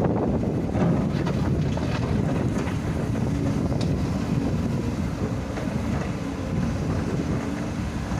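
Heavy diesel earthmoving machinery running steadily in a low rumble, with wind buffeting the microphone.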